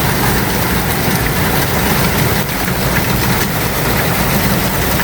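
Rain falling hard, a loud steady hiss with a low rumble underneath.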